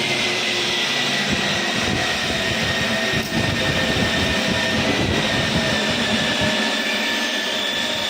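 Glass drilling machine running steadily: a high motor whine over a dense hiss, the whine drifting slightly lower in pitch.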